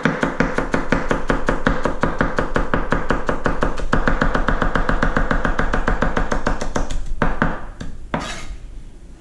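Kitchen knife chopping rapidly on a cutting board, about seven even strokes a second, for about seven seconds. It stops, and two single strokes follow near the end.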